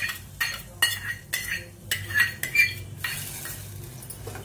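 Metal spoon stirring yogurt and green chillies in a stainless steel pot, clinking and scraping against the pot about two to three times a second. The clinking stops about three seconds in, leaving a soft steady hiss.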